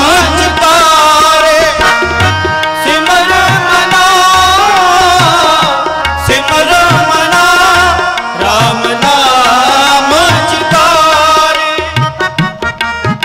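Sikh kirtan: a male voice singing over harmonium drones, with tabla keeping the rhythm. About twelve seconds in, the singing stops and the tabla plays a fast run of strokes alone over the harmonium.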